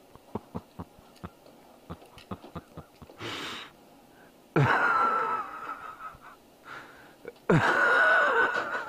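A man's voice letting out two loud, strained, wheezing cries a few seconds apart, each starting suddenly and lasting over a second. Before them come a few small clicks and a short hiss.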